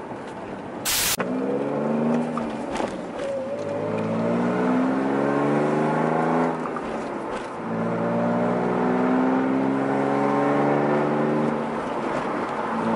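A BMW E46's engine, heard from inside the cabin, accelerating through the gears: the revs climb in three long pulls with a drop at each gear change between them. A single sharp click or knock sounds about a second in.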